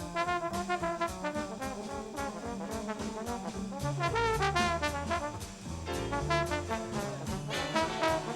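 Big band playing swing jazz: the trumpet and trombone sections carry sustained, wavering lines over a bass line and a steady cymbal beat from the drums.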